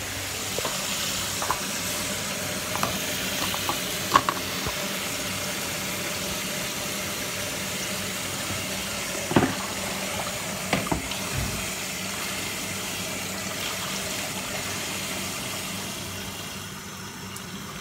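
Tap water running into a kitchen sink as parboiled chicken wings are rinsed, with a few sharp clanks of a pot or dish. The flow eases off near the end.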